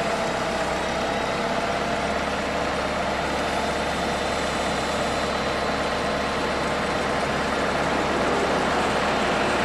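Rebuilt Hercules 2.7-litre LP-gas engine of a 1994 Daewoo 5,000 lb cushion-tyre forklift idling steadily, with a slight rise in level near the end, while the fully raised three-stage mast is lowered.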